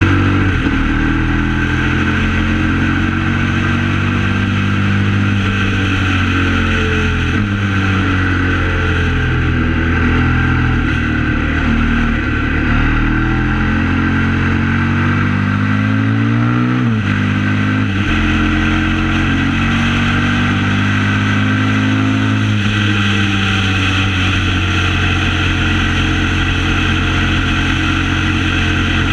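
KTM 950 SMR's V-twin engine running under way, its pitch rising and falling with the throttle. Past the middle the note climbs for a few seconds, then breaks off and drops suddenly before picking up again.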